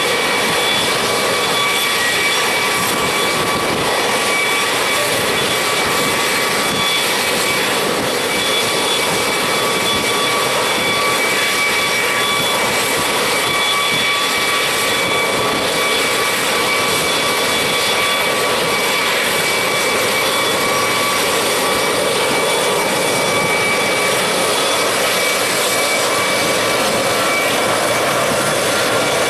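CH-53 helicopter's turboshaft engines and rotors running on the ground, rotors turning but not yet lifting off. A steady high turbine whine sits over a loud, even rush of rotor and engine noise, with no change in pitch or level.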